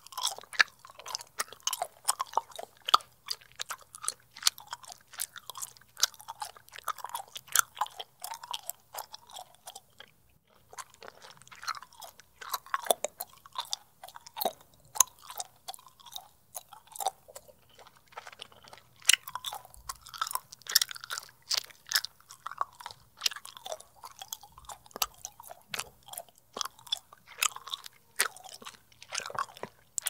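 Bubble gum being chewed close to the microphone: quick, irregular wet smacks and clicks of the mouth, with a brief pause about a third of the way through.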